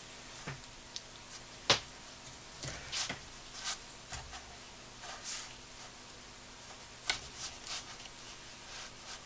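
Faint sounds of watercolour painting: a few light taps, the sharpest about two seconds in, and short soft brush strokes on paper.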